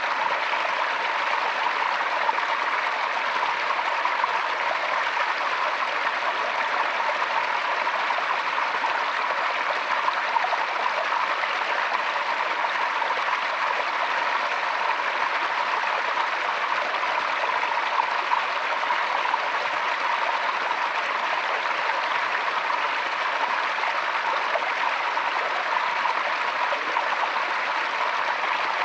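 Forest stream flowing over stones, a steady rushing and babbling of water.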